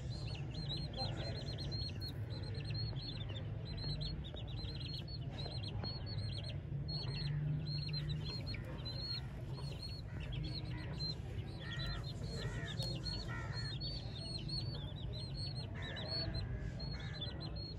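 Young chicks peeping: a steady run of high, short, falling cheeps, several a second, with a few lower calls mixed in past the middle, over a low steady hum.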